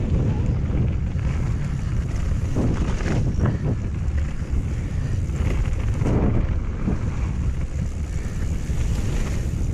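Wind rush on a bike-mounted camera's microphone during a fast mountain-bike descent over a loose, stony trail, with tyre noise and knocks and rattles from the bike over rough ground, heaviest around three seconds in and again about six seconds in.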